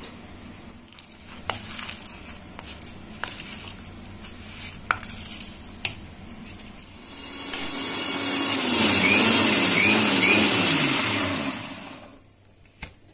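Clatter and knocks of a steel mixer-grinder jar and its lid being handled. Then an electric mixer grinder runs for about five seconds, grinding grated coconut, roasted split gram and fennel seeds, and stops about twelve seconds in. One sharp click comes near the end.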